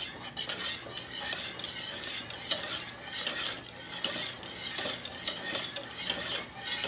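Wire whisk stirring thick custard in a stainless steel pot, its wires scraping and clicking against the metal sides and bottom in repeated strokes, roughly two a second.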